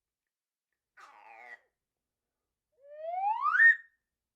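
A slide whistle gliding steadily upward in pitch for about a second, the comic rising "clown slide" effect, ending on a brief held top note. About a second in there is a faint short wobbly rasp.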